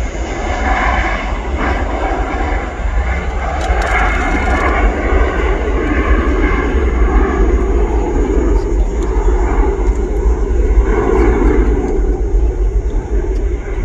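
Twin-engine business jet at takeoff thrust during its takeoff roll: a steady jet engine noise with a deep rumble, slowly growing louder.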